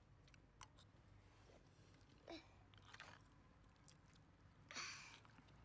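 A person eating cooked fish heads with rice: faint chewing, with scattered soft mouth clicks and smacks, and a short breathy sound near the end.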